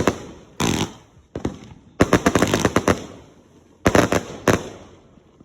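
Consumer fireworks going off in four rapid volleys of sharp cracking bangs, each volley lasting about half a second to a second, with short gaps between them.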